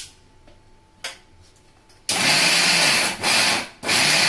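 Electric mixer grinder grinding garlic, green chillies and salt into a coarse paste. A couple of clicks come first, then the motor starts about two seconds in and runs loud, dropping off briefly twice as it is let off and run again.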